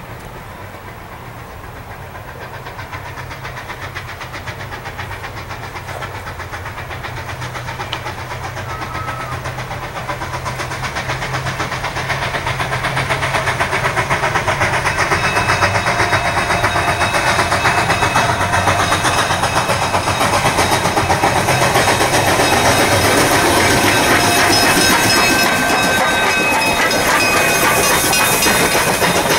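Durango & Silverton K-36 #481, a narrow-gauge 2-8-2 steam locomotive, approaching and passing close by, growing steadily louder. Steam hisses and the wheels and rods clatter on the rails.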